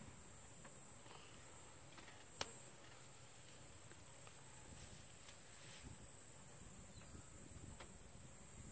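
Faint, steady high-pitched insect chorus in the grassland, with one sharp click about two and a half seconds in.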